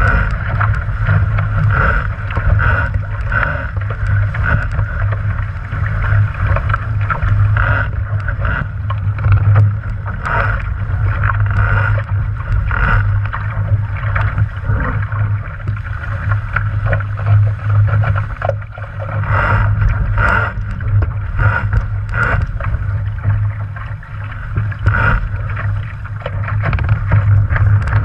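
Sailing dinghy hull moving fast through choppy water: water rushing and slapping along the hull in uneven splashes, over a steady rumble of wind buffeting the microphone.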